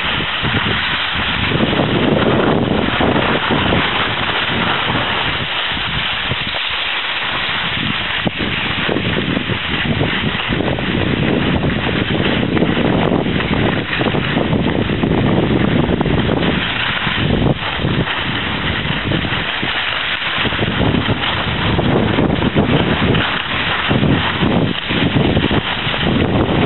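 Wind buffeting the microphone of a camera carried by a moving skier, rumbling in uneven gusts, over a steady hiss of skis sliding on packed snow.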